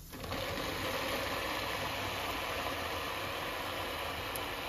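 Electric kitchen appliance motor, such as a mixer or grinder, running steadily. It switches on just after the start and cuts off near the end.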